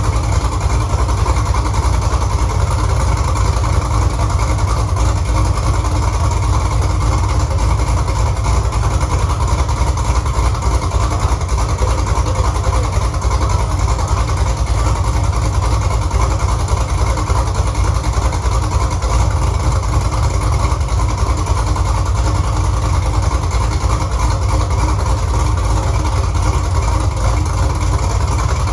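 Freshly installed 6.2 litre LS V8 in a 1968 Camaro idling steadily, with no revving, on one of its first runs after the engine swap.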